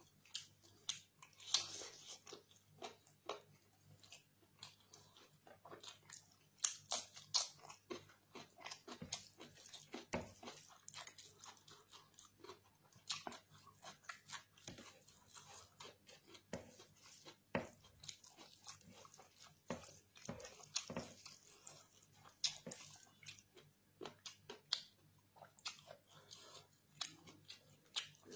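Close-miked chewing and biting: irregular wet mouth clicks and smacks from a man eating chicken curry and rice with his fingers.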